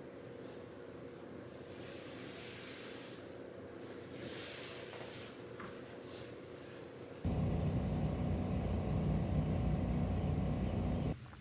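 Soft rustling as a hand strokes a large dog's fur. About seven seconds in, a sudden loud rumble of wind buffeting the microphone outdoors starts, then stops abruptly about four seconds later.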